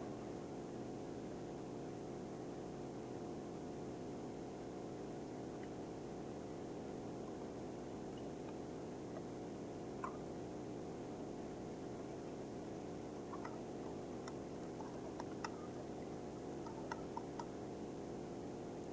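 Pancake batter being whisked in a mixing bowl: a steady soft swishing, with a few faint clicks of the whisk against the bowl in the second half.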